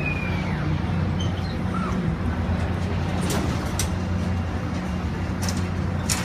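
Steady low machine hum, typical of fairground generators and ride machinery, under general outdoor noise, with a few sharp clicks about three seconds in and near the end.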